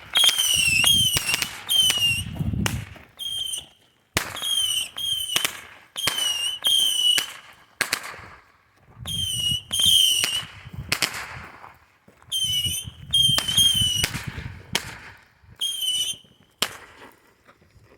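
Whistling fireworks going off in quick succession: more than twenty sharp cracks, each followed by a short, high, wavering whistle. They come in clusters of a few at a time with short pauses between, and a low rumble runs under some of the clusters.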